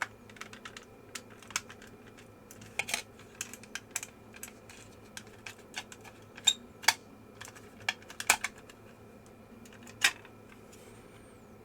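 Irregular sharp plastic clicks and taps from handling the opened vintage Rockwell 21R calculator's case and parts.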